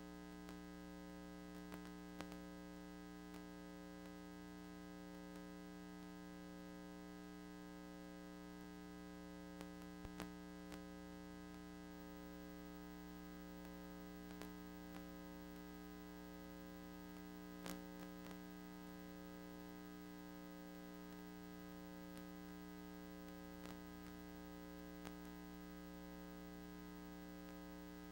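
Faint steady electrical hum with a light hiss and scattered small clicks: the background noise of a VHS tape transfer over the silent copyright warning screen.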